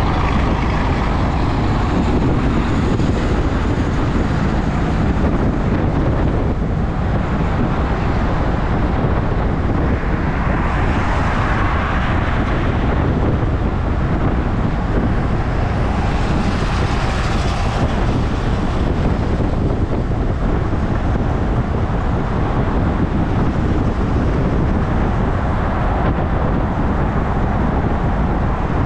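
Wind rushing over the microphone of a handlebar-mounted camera on a bicycle riding at speed, a steady rumbling noise mixed with road and traffic noise. It swells twice, around eleven and seventeen seconds in.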